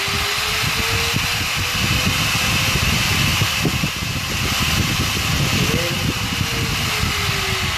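Angle grinder running through a dimmer-type speed controller. Its motor whine rises in pitch over the first couple of seconds as the speed is turned up, holds steady, then falls from about six seconds in as the speed is turned down.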